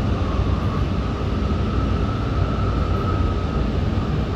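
Tokaido Shinkansen train running, heard inside the passenger car: a steady rumble with a faint whine that drifts slightly lower in pitch as the train nears its stop at Shin-Yokohama.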